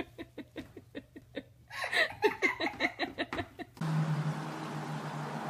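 A person laughing in quick, rapid bursts for about two seconds. Near the end, the sound switches abruptly to a steady hiss with a low hum.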